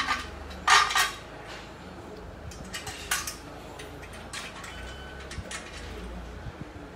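Metal clinks and clanks of steel tubes, bolts and fittings being handled while a black steel exercise frame is bolted together. A loud clank comes about a second in and another about three seconds in, with lighter ticks between.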